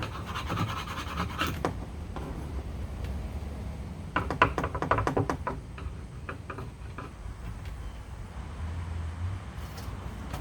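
Screwdriver and screws scraping and clicking against a cabinet handle and door while the handle is screwed on by hand, in two short spells of rapid clicks.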